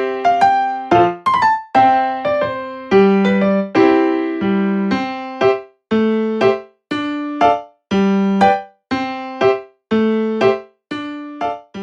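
Background music: piano-like keyboard playing a bouncy tune of short, repeated chords, each note decaying quickly.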